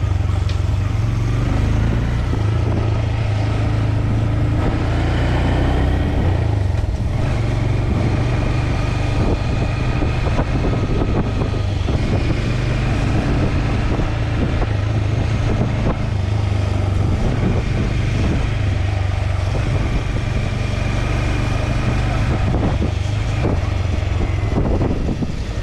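Motorcycle ridden at a steady cruising pace, heard from the bike itself: a continuous low rumble with a faint higher whine that comes and goes.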